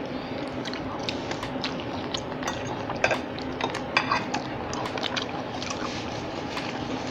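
Close-miked eating sounds of two people eating battered fried strips and rice: chewing and wet mouth sounds, with scattered small clicks of forks against the plates.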